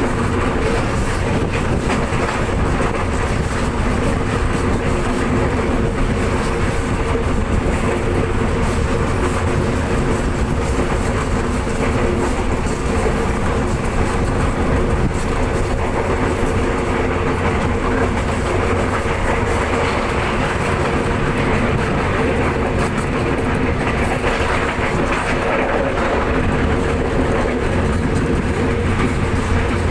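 Commuter train running on the rails: a steady, even rumble with a constant hum underneath.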